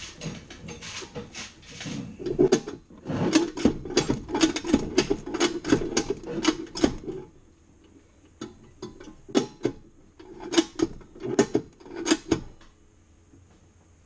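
Ratcheting lever chain hoist being cranked, clicking in fast runs as it tightens the chain that pulls giant bolt cutters closed on a hardened lock shackle. It clicks steadily for about seven seconds, pauses, then comes in shorter bursts of clicks.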